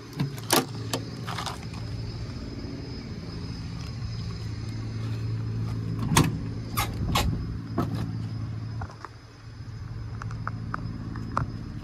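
Sharp clicks and knocks from the cab door of a 1999 International 4700 truck as its handle is pulled and the door is unlatched and swung open, about six seconds in, with a few clicks from handling the rubber hood latch near the start. Under them runs a steady low vehicle engine hum that stops about nine seconds in.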